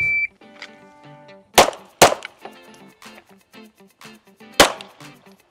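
A shot timer's start beep, one short high tone, then pistol shots: two about half a second apart at around a second and a half in, and a third about two and a half seconds later.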